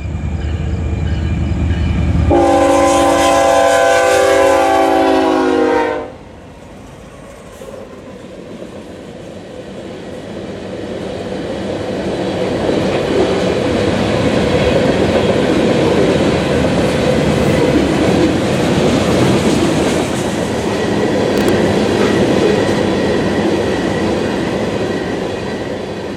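Diesel freight locomotives approaching with a low engine rumble. About two seconds in, the lead unit, BNSF ES44C4 4280, sounds one long chord on its horn lasting nearly four seconds. Then the covered hopper cars of a loaded sand train roll past with steady wheel clatter on the rails that builds and holds.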